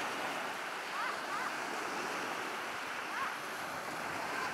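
Small lake waves breaking and washing up on a sandy beach: a steady rush of surf. Faint voices of people in the water come through now and then.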